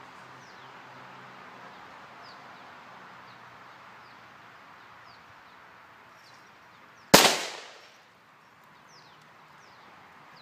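A single gunshot about seven seconds in, sharp and far louder than anything else, its echo dying away within about a second. Birds chirp faintly throughout.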